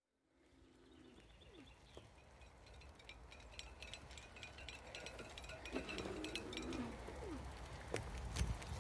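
Electric cargo bike riding along a forest path: a low rumble from the tyres on the ground with light clinks and rattles from the bike, growing steadily louder, and a couple of short falling calls.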